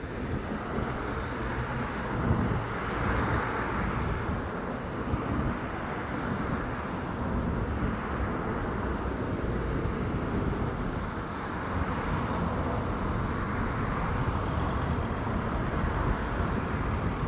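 Road traffic noise: a steady low rumble with passing vehicles swelling up and fading away every few seconds.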